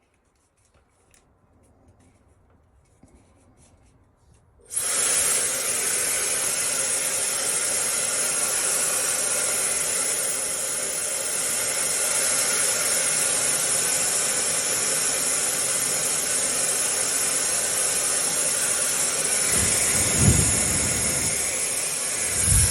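High-speed ionic hair dryer switched on about five seconds in, after a few seconds of near silence, then running steadily: a loud rush of air with a thin high whine from its fast motor. Two short low bumps near the end.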